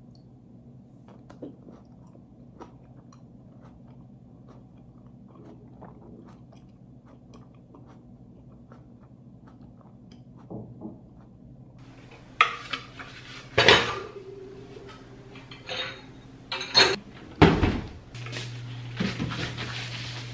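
Cats eating kibble from their bowls, faint scattered crunching ticks. A little past the middle come loud clatters and sharp knocks of dishes and cutlery, and a steady low hum starts near the end.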